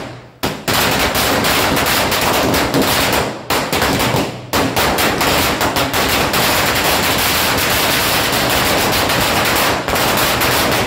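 A long string of firecrackers (saravedi) going off: one bang, a short pause, then a dense, rapid, unbroken rattle of bangs, with brief lulls about three and a half and four and a half seconds in.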